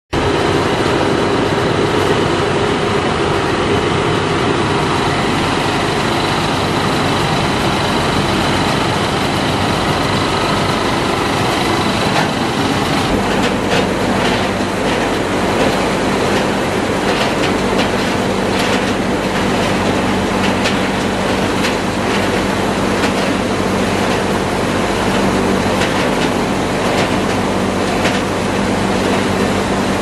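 Plastic crushing and washing line running, with loud steady machinery noise from the plastic crusher and conveyor motors. A little before halfway a deeper steady hum comes in, along with frequent sharp clicks and knocks as the crusher chops plastic.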